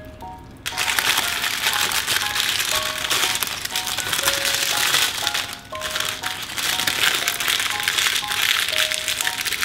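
Baking parchment paper crinkling loudly and continuously as hands handle croissants in a paper-lined basket, starting suddenly about a second in. Soft background music with a plucked melody plays underneath.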